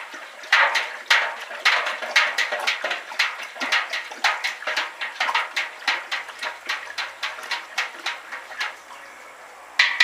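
Hot wort being stirred fast in a stainless steel brew kettle with a long paddle, whirlpooling it to pull the hop debris into the centre: rhythmic swishing and sloshing, about two strokes a second, that eases off about eight seconds in, with one more swish near the end.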